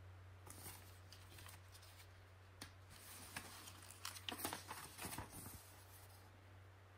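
Paper pages of a folded instruction manual being handled and turned: a run of rustles and crinkles, busiest from about four to five and a half seconds in, over a steady low hum.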